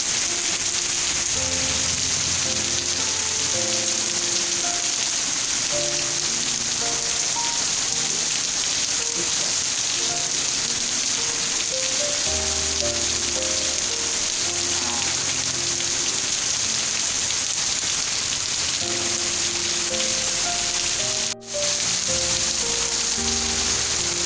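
Steady rain hiss with soft background music of slow, held notes underneath. The sound drops out for a split second about 21 seconds in.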